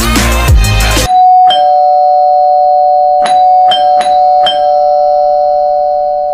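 Music cuts off about a second in, leaving a steady electronic tone of two notes held together. Five short bell-like dings sound over it: one just after the music stops, then four in quick succession around the middle.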